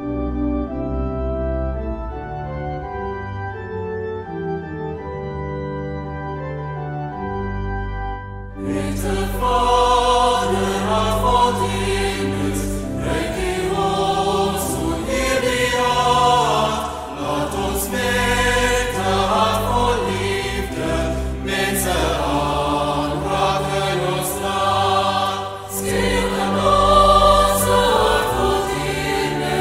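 Sacred choral music: sustained organ chords at first, then about eight seconds in a choir comes in singing over a fuller accompaniment.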